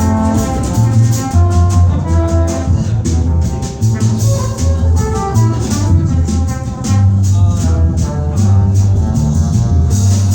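A small band playing an instrumental tune live: a walking bass line under melodic instruments, with steady, fast percussion ticking on top.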